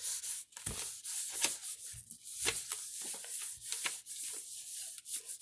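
A hand rubbing across the back of a sheet of paper laid on a gel printing plate, burnishing it to lift the paint off the plate: repeated brushing strokes of skin on paper, with a few light knocks among them.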